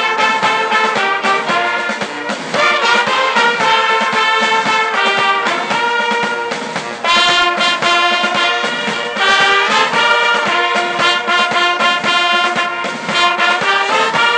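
Brass band of sousaphones, tubas, euphoniums and trumpets playing a tune in held chords, with a short break about seven seconds in.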